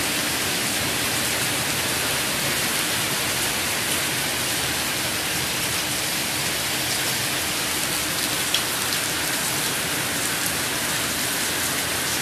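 Steady rain falling, an even hiss of many drops, with one louder drop ticking about two-thirds of the way through.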